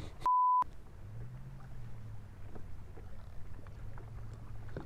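A short censor bleep, a single steady pure tone, just after the start; then a boat motor's steady low hum.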